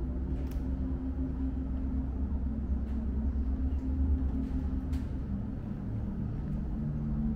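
Slow ambient background music with sustained low notes over a deep, steady rumble.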